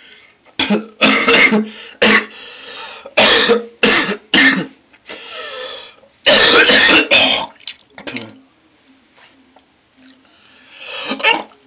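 A person retching and vomiting into a toilet bowl after drinking a liter of tea. Loud heaves come in a series of short bursts, the longest about six seconds in, with quieter gasping breaths between them.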